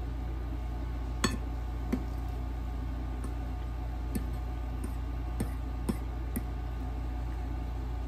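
A metal fork clinking and scraping against a plate while noodles are picked up, about six short sharp clicks, the loudest about a second in. A steady low hum runs underneath.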